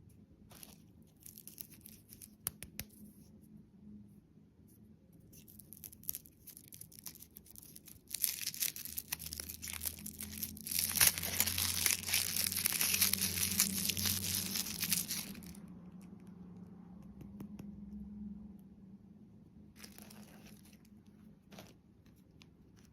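Candy packaging being crinkled and torn open: light crinkles at first, then several seconds of loud, dense crackling midway, then a few lighter crinkles near the end.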